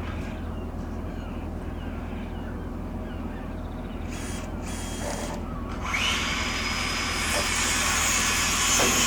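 A steady low hum, then about six seconds in a loud machine noise starts suddenly: a steady rush with a high whine, growing louder toward the end.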